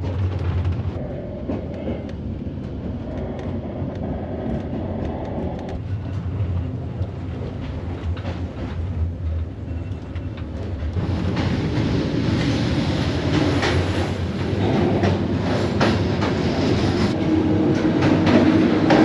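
Passenger train running on the rails, heard from inside a carriage: a steady low rumble with frequent clicks and knocks, growing louder and noisier about eleven seconds in.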